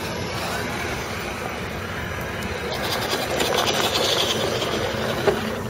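Radio-controlled scale crawler trucks working over loose dirt and rocks, with a steady mechanical drive sound and tyres crunching on the ground. It swells for a second or two midway and ends with one sharp click near the end.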